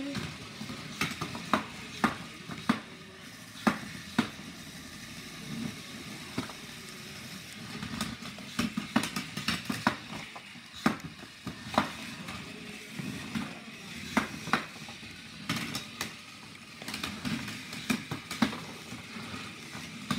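Hexbug BattleBots toy robots' small motors running in a plastic arena, with frequent sharp plastic clacks as the bots strike each other and the arena walls.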